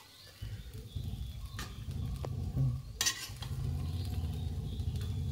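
A long metal spatula scraping and clinking against a steel pan as fried potato pieces are stirred and scooped up, with a few sharp knocks, the loudest about three seconds in, over a low steady rumble.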